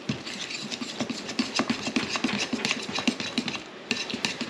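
Utensil stirring flour into sourdough dough in a mixing bowl, knocking and scraping against the bowl in quick repeated strokes, several a second, with a short pause near the end.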